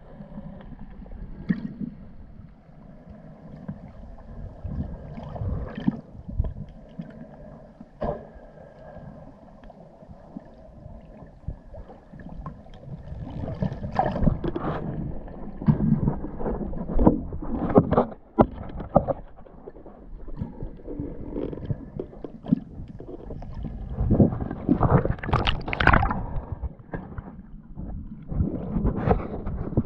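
Muffled underwater water noise from a swimming diver: irregular swishes and gurgles of moving water, with louder bursts about halfway through and again near the end.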